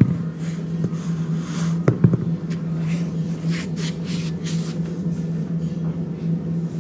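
Steady low machine hum, with soft knocks and shuffling from a person stepping and squatting on an exercise mat; a sharper knock about two seconds in.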